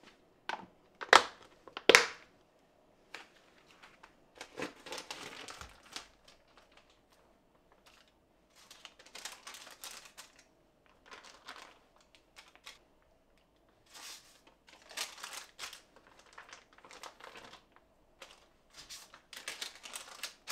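Paper sheets and plastic meat packaging rustling and crinkling in short, irregular bursts as sliced raw meat is portioned out by hand. Two sharp knocks, the loudest sounds, come about one and two seconds in.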